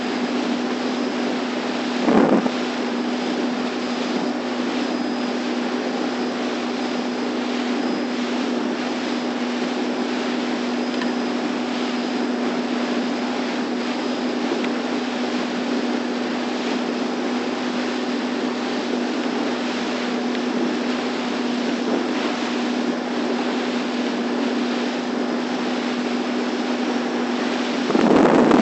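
Small boat's engine running at a steady pitch, with wind noise on the microphone over it. A brief louder burst comes about two seconds in and again near the end.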